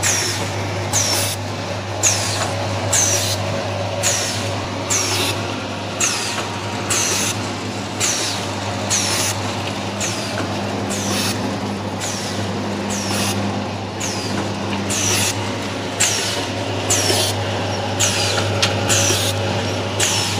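Vertical form-fill-seal packing machine running in its bagging cycle: a short hiss that falls in pitch about once a second, one per bag, over a steady low machine hum.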